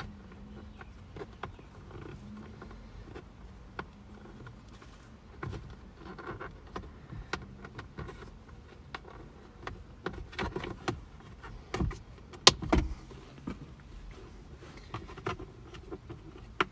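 Toyota Hilux plastic glove box being refitted by hand: scattered clicks, knocks and rubbing of plastic parts, the sharpest knock about twelve seconds in.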